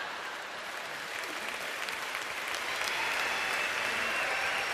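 Theatre audience applauding a punchline, the clapping swelling a little after about two seconds.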